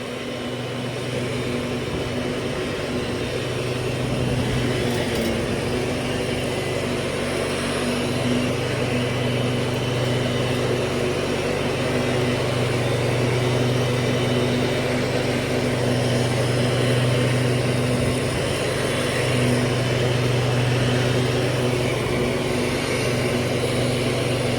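1997 MTD Yard Machines riding lawnmower engine running steadily while mowing, a constant hum that swells slightly over the first few seconds.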